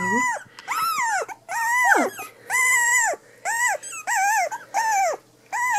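3-week-old cavachon puppy whining in a rapid series of about nine short, high-pitched cries, each rising and then falling in pitch.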